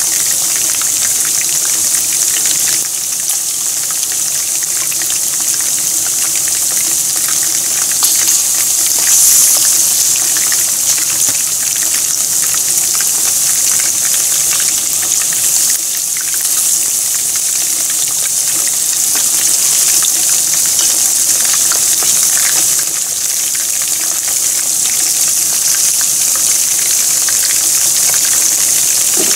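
Hot oil sizzling steadily as battered pieces deep-fry in a frying pan: a dense hiss full of fine crackles.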